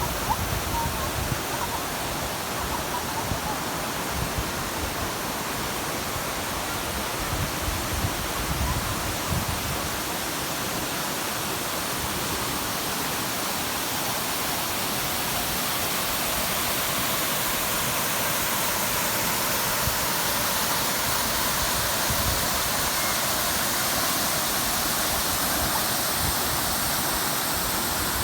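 Steady rush of flowing water, a continuous even hiss, with a few low buffets in the first ten seconds.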